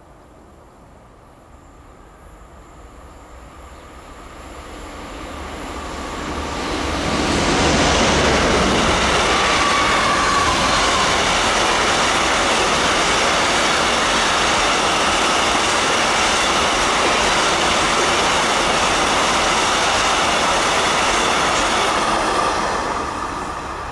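Freight train passing close by: a Vossloh G2000 BB diesel-hydraulic locomotive approaches, growing louder over the first several seconds. A long train of hopper wagons then rolls past with a steady, loud rumble of wheels on rail, which fades near the end as the last wagon goes by.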